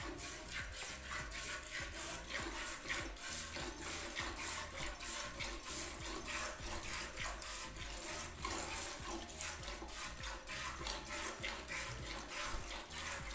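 Milk squirting by hand from a cow's teats into a steel pail, in a quick steady rhythm of two or three squirts a second as the hands alternate.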